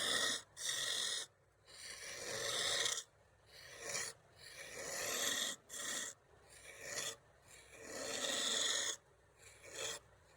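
Wood being rasped by hand in about ten uneven strokes, some brief and some over a second long, with short pauses between them.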